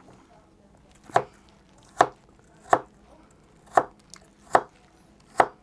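Kitchen knife chopping peeled apple on a plastic cutting board: six sharp knocks of the blade striking the board, roughly one a second, starting about a second in.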